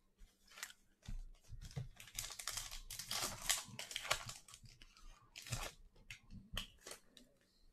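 Sports card pack wrapper being torn open and crinkled by hand: a quick run of crackles and rustles, thickest a couple of seconds in, as the sealed pack is ripped open.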